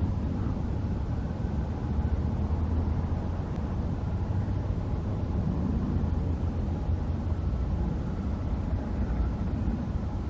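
Steady low rumble of a vehicle running, with an even outdoor hiss above it.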